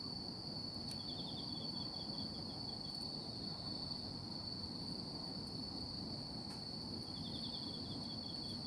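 Insects calling at night: one keeps up a steady, unbroken high trill. A second insect breaks in about a second in and again near the end with a rapid pulsed chirping series that trails off over about two seconds.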